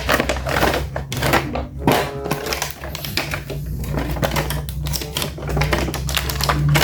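Rapid, irregular clicking and crackling of plastic toy packaging being handled and opened.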